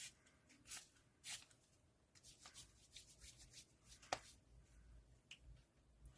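Quiet, scattered rustles and taps of photocards and packing material being handled during photocard packing, busier in the middle, with one sharper click a little after four seconds.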